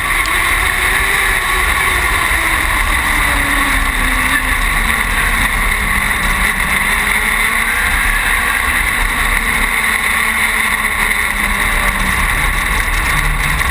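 Dwarf race car's motorcycle-derived engine running hard and steady, heard from on board the car, with its pitch sagging and rising slowly over the lap.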